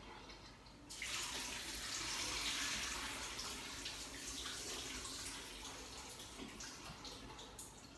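Kitchen tap water running into the sink over a pot of boiled beans as they are rinsed with cold water to cool them. It starts about a second in and slowly eases, with a few light clinks of the pot.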